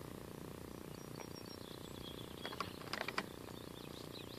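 Quiet outdoor background with birds chirping, and a quick cluster of several sharp clicks a little past halfway.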